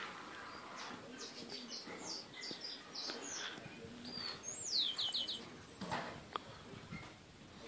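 Small birds chirping: a string of short, high chirps, with a few quick downward-sliding whistles a little past the middle.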